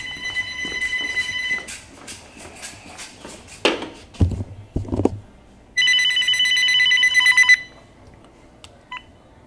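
Cordless phone ringing: two electronic rings about two seconds long, the second warbling rapidly, with a couple of thumps between them. A short beep sounds near the end.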